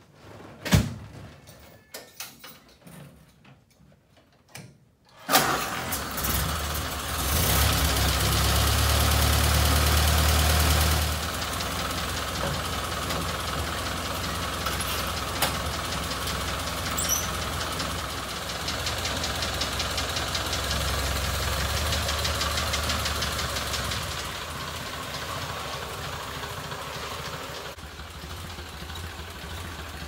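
A few light clicks and knocks of work on the ignition, then the Ford Model A's four-cylinder flathead engine starts suddenly about five seconds in and keeps running. It is louder for a few seconds, then settles to a steady idle. It now runs after its arcing coil wire was replaced.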